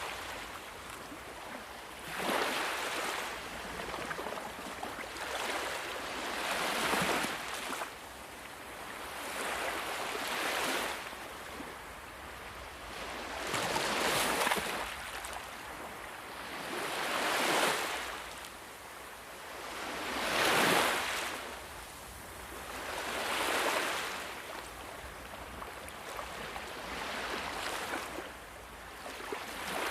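Sea waves breaking on a shore, the hiss of surf swelling and falling away every three to four seconds.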